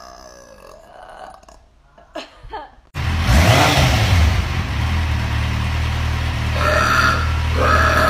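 A woman's long burp, falling in pitch, ends about three seconds in. The sound then cuts to a Kawasaki motorcycle's engine running with a low, steady rumble, with a quick throttle blip just after the cut. Near the end, a drawn-out voice sound rises over the engine.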